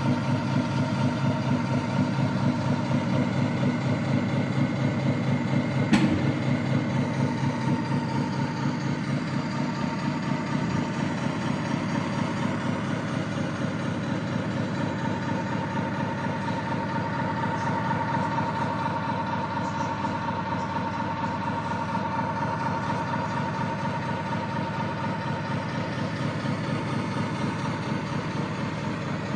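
Engine sound of an RC Scania R730 V8 model truck, a steady V8 diesel idle from its sound module: an even low pulsing rumble with a high hum over it. A single sharp click about six seconds in.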